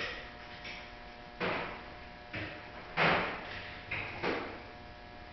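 A run of separate knocks and clattering bumps, about six in five seconds, the loudest about three seconds in, over a faint steady hum.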